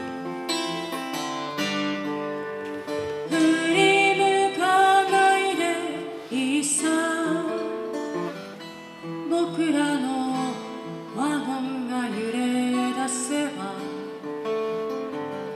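Steel-string acoustic guitar strummed and picked, with a woman singing along. The guitar plays alone for about the first three seconds before the voice comes in, with a wavering vibrato on held notes later on.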